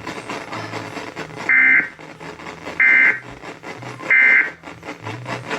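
Three short EAS end-of-message data bursts from a NOAA weather radio, about 1.3 s apart, signalling that the tornado warning broadcast has ended.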